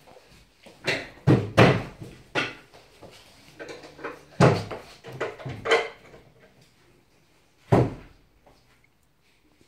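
Irregular knocks and thuds of dark laminated wooden bed-frame panels being handled and fitted during assembly, with a last loud knock about eight seconds in.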